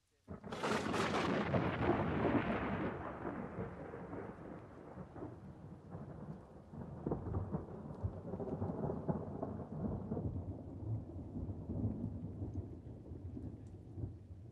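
A thunderclap breaks sharply just after the start and rumbles away over about three seconds, then heavy rain keeps falling, with low rumbling swelling again now and then.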